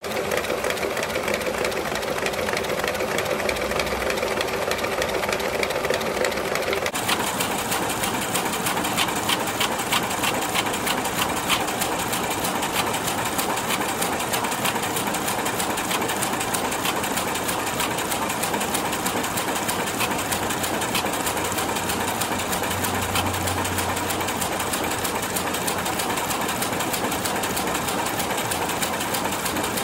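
High-speed office photocopier running a copy job, with a steady mechanical whir. About seven seconds in it changes from a humming whir to a dense run of fast, even clicks as sheets feed through and drop into the output tray.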